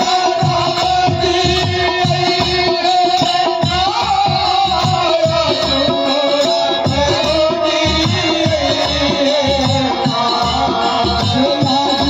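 Live devotional folk music: a hand drum keeps a steady beat under a held melody line and a man singing.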